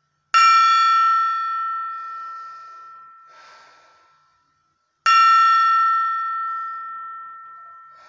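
Small brass gong struck twice with a mallet, about five seconds apart. Each stroke rings out with a clear tone and fades slowly over several seconds.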